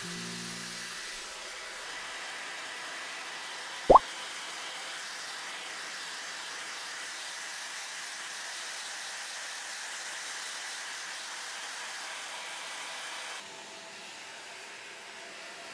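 Hair dryer blowing steadily as a Pomeranian is dried after a bath, a steady hiss that drops a little near the end. About four seconds in there is one short, loud pop.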